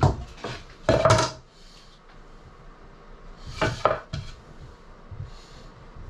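Knocks and clatter of wood and tools being handled, in three short bursts; the loudest, about a second in, has a brief ring.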